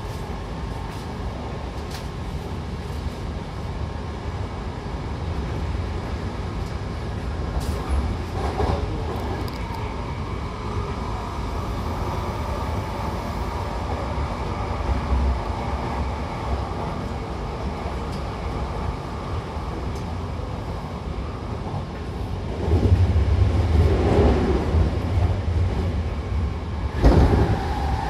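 A Hankyu Takarazuka Line commuter train running between stations, heard from inside the car: steady wheel and motor running noise with a low rumble. The rumble grows louder about two-thirds of the way through, and a single sharp knock comes near the end.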